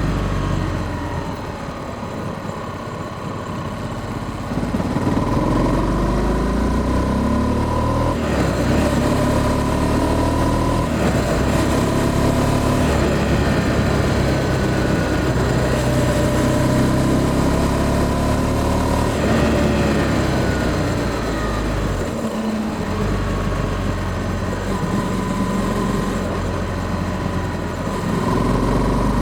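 Honda CB300F Twister's single-cylinder engine running on a ride, revs rising and falling repeatedly as it accelerates and changes gear, picked up by a microphone under the seat.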